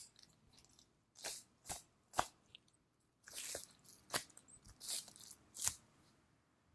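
Butcher's knife cutting away a flap of membrane and fat from a block of Kuroge Wagyu kame-no-ko (part of the beef knuckle), in about seven short sharp strokes, some drawn out. The sharpest stroke comes about two seconds in.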